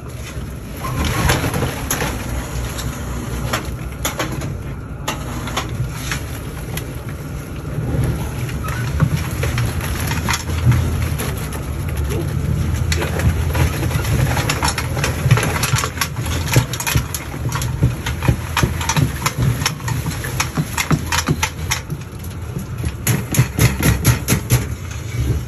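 Freshly boiled crawfish clattering as they are shaken and tipped out of a mesh boil basket into a cooler: a rapid run of shell clicks, thickest in the second half, over a steady low rumble.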